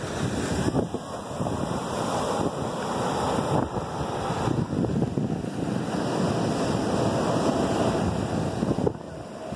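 Ocean surf breaking and washing up a sandy beach: a steady rushing of waves and foam, with wind buffeting the microphone.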